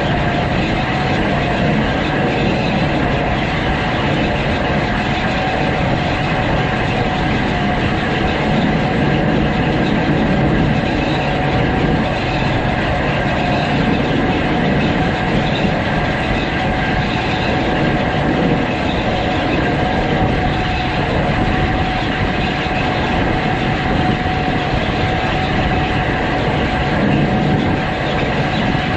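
Gleaner S98 combine harvester running steadily under load while harvesting oats: a constant heavy drone with a steady whine riding on it.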